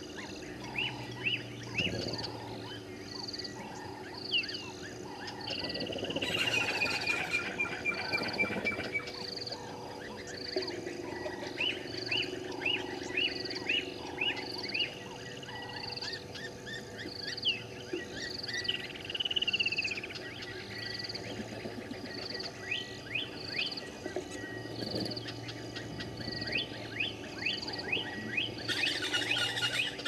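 Evening chorus of wild birds in the bush: quick series of chirps, a high call repeating about once a second, and a longer call falling in pitch a few seconds in, over a steady low drone.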